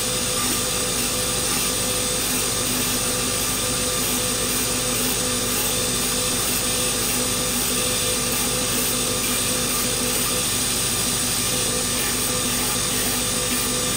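Metabo BS 200 Plus bench grinder and belt sander running steadily, its abrasive belt grinding a silver-and-copper mokume gane blank held against it.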